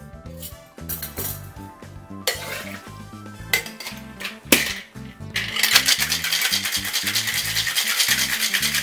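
Metal cocktail shaker with ice: a few sharp metallic knocks as the tins are fitted and pressed shut, then from about halfway through a fast, loud rattle of ice cubes as it is shaken hard.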